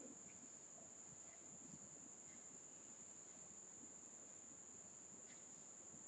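Near silence: faint room tone with a steady, thin high-pitched whine.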